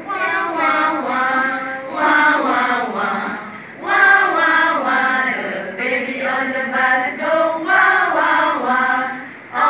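A group of women singing a nursery action song together, in sung phrases with short breaths between them.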